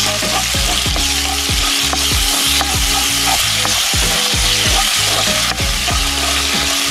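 Ginger-garlic-green-chili paste sizzling steadily in hot oil in a kadhai while a spatula stirs it, the start of a curry base being sautéed. A background music track with steady low notes and a low repeating beat plays underneath.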